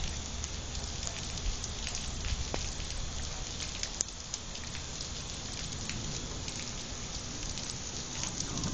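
Rain falling, with many scattered drops ticking sharply, over a steady low rumble.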